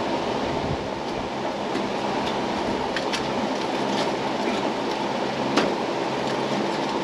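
Steady rumbling noise, with a few faint light clicks of metal tongs moving wood and coals in a charcoal offset smoker's firebox.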